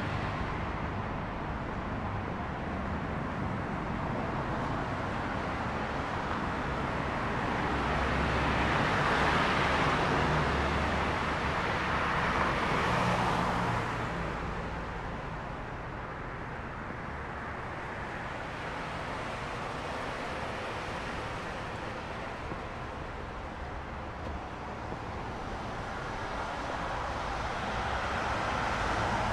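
Street traffic: cars passing, swelling in the middle of the stretch and again near the end, over a steady hum of road noise.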